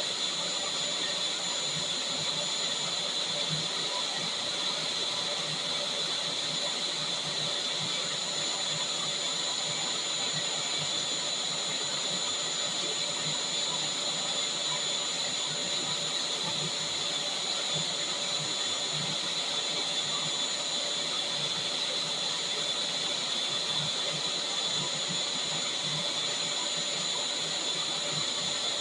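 Vacuum cleaner running steadily: a constant rush of air with a steady high-pitched whine from the motor.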